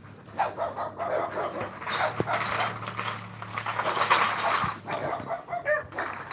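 Scattered short animal calls.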